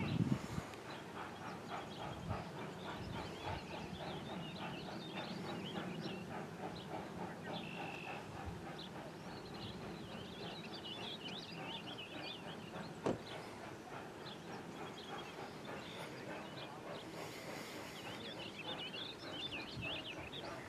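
Distant Arcade & Attica No. 18, an Alco 2-8-0 Consolidation steam locomotive, chuffing in an even beat, faint under birds singing close by.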